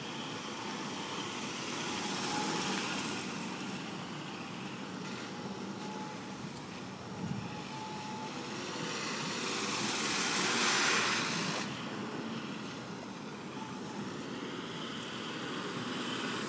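Vehicle running noise: a steady rush that swells twice, most strongly about two-thirds of the way through.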